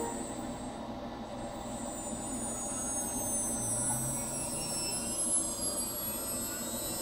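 CNC machine's motors running, a steady hum under a high whine whose pitch slowly glides downward through the second half.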